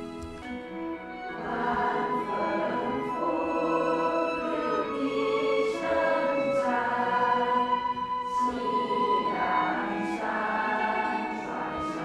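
A group of voices singing a Mandarin song together.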